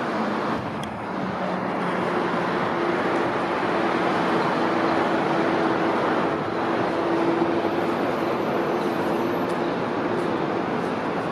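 Steady road-traffic noise around a Tatra T4R tram standing at its stop, with a steady low hum through the middle that stops near the end.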